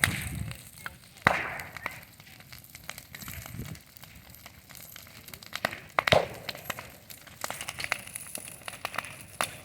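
Bonfire burning and crackling, with irregular sharp pops and snaps.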